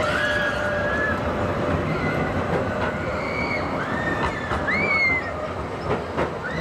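Funfair crowd noise with voices shouting and shrieking from the rides, rising and falling. A Grenoble TFS tram rolls past on its rails in the second half.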